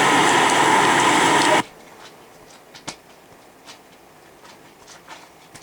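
Heavy wind-driven rain and wind, a loud steady hiss that cuts off suddenly about a second and a half in, leaving only faint scattered ticks and clicks.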